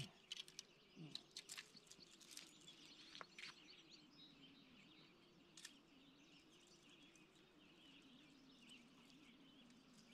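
Near silence: quiet lakeshore ambience with faint distant birdsong and a few soft clicks and taps in the first few seconds.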